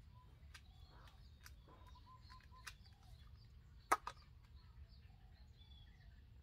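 Faint birds chirping in the background, with a few light clicks and one sharper double click about four seconds in as hands work seedlings and small plastic pots in a garden bed.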